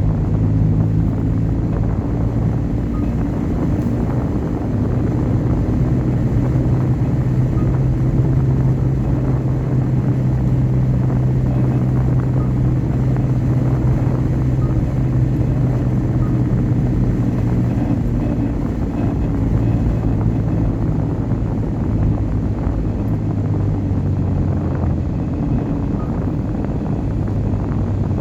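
Car driving along a road: a steady engine hum under road and tyre noise, the engine note dropping a little lower around the middle.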